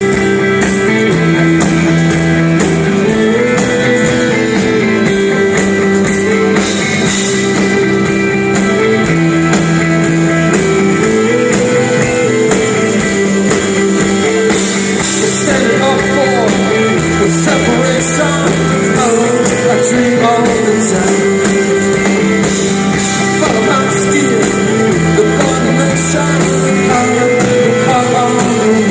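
Indie rock band playing live: electric guitars, bass and drum kit with a steady beat and a chord pattern that repeats about every eight seconds, with a voice singing over it.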